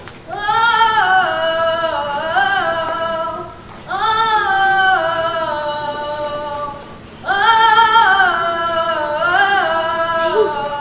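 Young children singing a song, three phrases about three seconds each with short breaks between.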